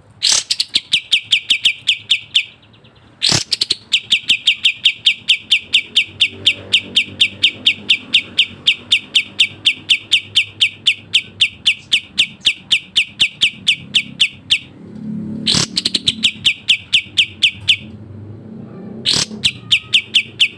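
A kapas tembak songbird singing a fast, dense rattle of evenly repeated high notes, about six a second. It comes in four runs separated by short gaps; the longest, about ten seconds, starts a few seconds in.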